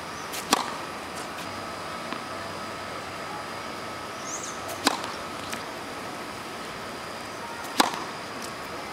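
Tennis racket striking the ball on serves: three sharp pops, about four and then three seconds apart, with a few fainter knocks between. A bird chirps faintly once, about four seconds in.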